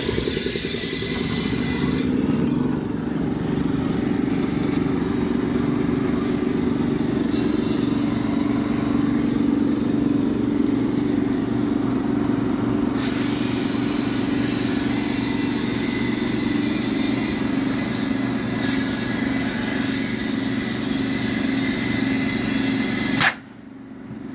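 An engine running steadily with an even hum, overlaid by a shifting hiss; the sound drops away abruptly near the end.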